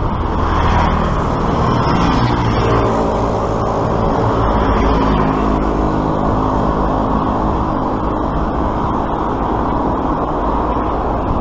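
Road traffic heard from a moving bicycle: a steady low rush and rumble, with a motor vehicle's engine droning through the middle several seconds.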